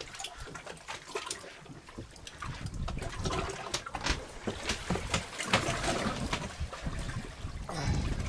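Sea water lapping and trickling against a boat's hull, with scattered small splashes and clicks and an uneven low rumble.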